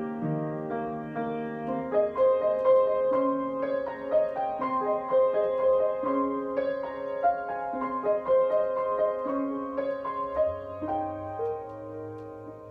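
Upright piano playing a waltz, a melody over chords. The playing grows softer near the end, over a low held bass note.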